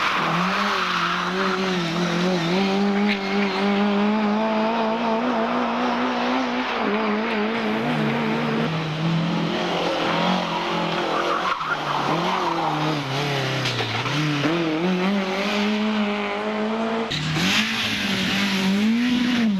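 Competition car engine revving hard, its pitch rising and falling again and again through gear changes and lifts, with tyre squeal. The sound changes abruptly near the end.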